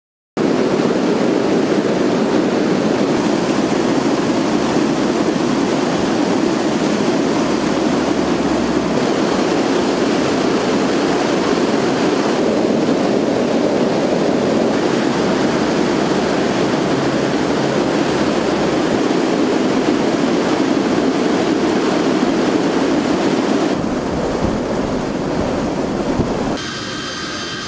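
Loud, steady rush of engine and slipstream noise in an aircraft flying with its door open over the sea. About a second before the end it cuts to a quieter, steady jet-engine whine with high tones.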